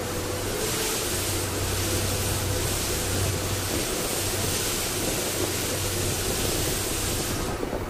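Slow-moving train with a steady low hum, and a loud even hiss that starts about half a second in and cuts off abruptly near the end.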